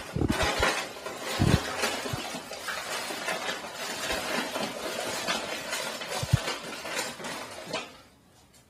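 Pugs eating dry kibble: a dense run of crunching and clicking with a few soft knocks, dropping away shortly before the end.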